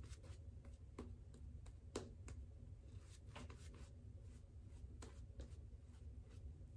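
Faint brushing of a Hendrix Classics synthetic shaving brush working shaving-soap lather over the face, with small irregular ticks, one a little louder about two seconds in.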